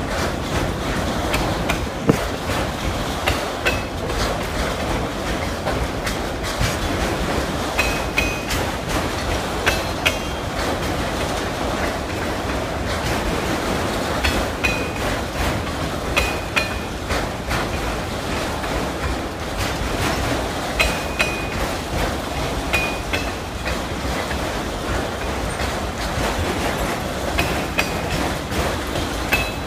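Freight train of loaded autorack cars rolling past: steady rumble of steel wheels on rail with irregular clicks and clanks from wheels and couplers, and a few brief high wheel squeals.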